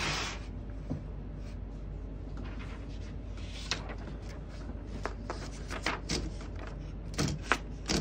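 A 1941 Corona Comet De Luxe portable typewriter being handled: a brief rubbing scrape as the machine is turned on the table, then scattered mechanical clicks that come more often toward the end as a sheet of paper is loaded and the platen is turned.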